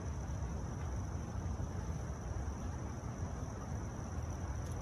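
Steady background noise: a low rumble and hiss with a constant thin high-pitched tone over it.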